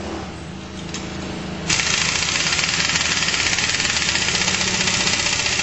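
Impact wrench hammering on the variator nut of a GY6 scooter engine, starting a little under two seconds in and running for about four seconds.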